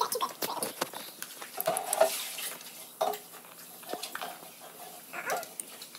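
Metal fork and cake server clinking and scraping against an aluminium baking pan as a piece of frosted cake is cut and lifted out, in many short irregular clicks and scrapes.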